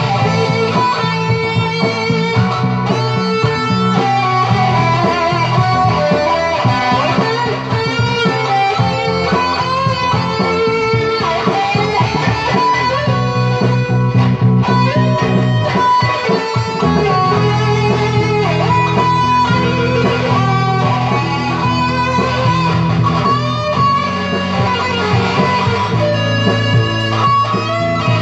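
Electric guitar played live: a melodic lead line with gliding, bent notes over steady held low notes, loud and continuous.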